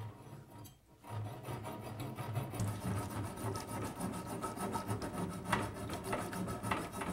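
Mini hacksaw cutting through a copper water pipe in quick, steady back-and-forth rasping strokes, starting about a second in.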